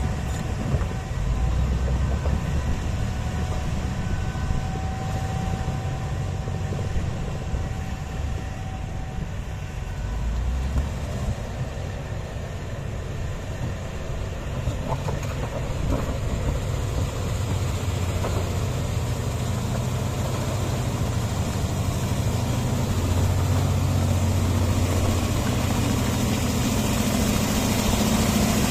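Komatsu D155A crawler bulldozer working, its diesel engine running steadily with a low rumble that grows somewhat louder near the end.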